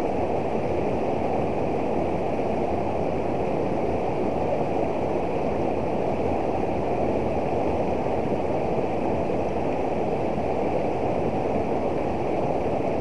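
Fast, high-running river rushing steadily over a small weir and around rocks, a deep, even rush of water. The current is swift enough that it looks about to flood.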